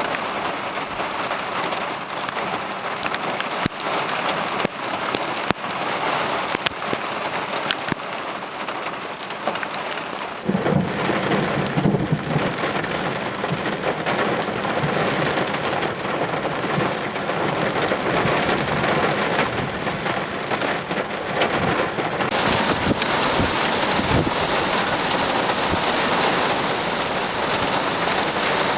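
Heavy rain pouring, with a dense patter of drops hitting close by. About ten seconds in a deeper rumbling sets in and carries on under the rain.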